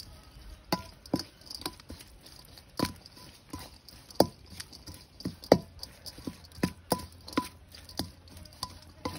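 A metal spoon clinking and scraping against a stainless steel mixing bowl as minced pork is stirred: irregular clinks, one or two a second, each with a short metallic ring.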